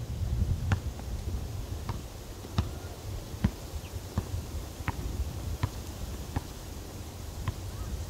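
A basketball dribbled on a hard outdoor court: regular bounces about three-quarters of a second apart, over a low rumble.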